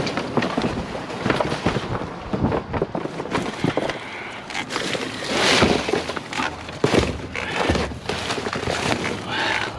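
Hands rummaging through a box of scrap, with irregular clatters and knocks of metal and wire being shifted and rustled.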